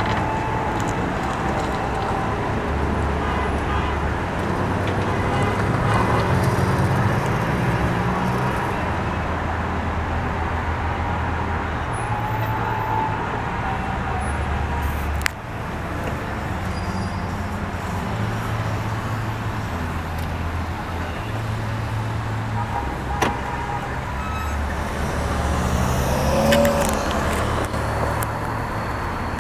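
Road traffic at an intersection: cars and trucks driving past, with engine and tyre noise and a low uneven rumble, and a sharp click about halfway through.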